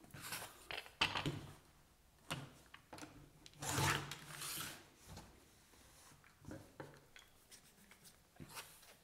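Rotary cutter rolling through layered cotton shirt fabric along an acrylic quilting ruler on a cutting mat, one longer rasping cut about four seconds in. Shorter knocks and rubs come from the ruler and fabric pieces being shifted around it.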